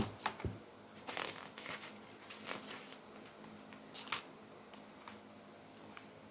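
Pages of a children's picture book being handled and turned: a run of short paper rustles and flaps, with a sharp knock at the start.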